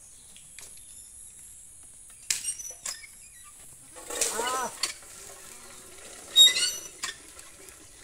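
A few light knocks, then a goat bleats once, a wavering call under a second long about four seconds in. A shorter, louder, higher-pitched call follows about two seconds later.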